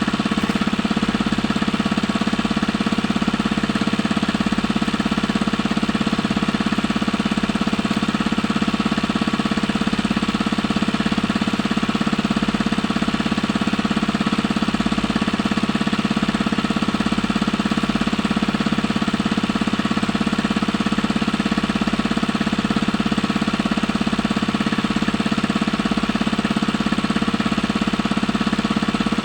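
Small engine running steadily at a constant speed, with a fast, even knocking beat.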